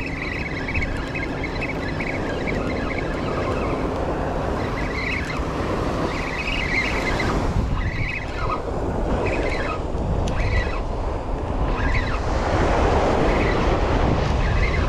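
Surf breaking on the beach and wind buffeting the microphone, with the whir of a spinning reel being cranked in short spells.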